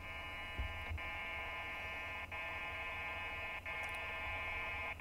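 VARA FM modem drive-level calibration signal heard through a second handheld radio tuned to the same frequency. It is a dense chord of many steady tones, sent in repeated bursts of about 1.3 s, each separated by a brief gap, with the audio level gradually increasing from burst to burst.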